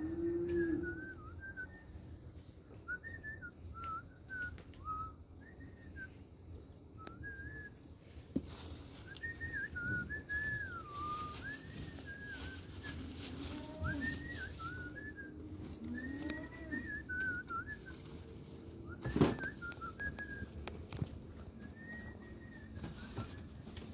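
Warbling high whistles come and go throughout. A cow lows briefly at the start, a long plastic glove rustles as it is pulled on about nine to thirteen seconds in, and a single sharp knock, the loudest sound, comes about nineteen seconds in.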